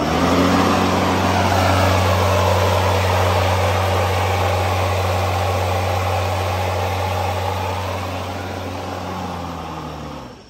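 Ryobi 36V brushless cordless lawn mower's motor and blade starting up and running with a steady hum and whoosh, then winding down and stopping about ten seconds in.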